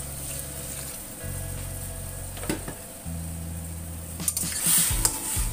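Shrimp, tofu and meatballs sizzling in a stainless-steel wok as a little water is poured in, with a metal spatula scraping and stirring around four seconds in. Background music with steady low bass notes underneath.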